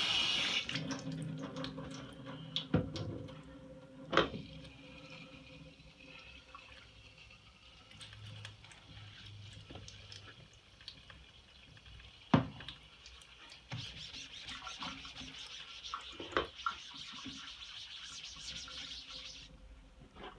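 Water spraying from a spray head onto wet nickel mesh, cutting off about half a second in, then a sponge scrubbing the mesh with dish detergent, with a few sharp knocks. A steady hiss of water returns for about six seconds near the end.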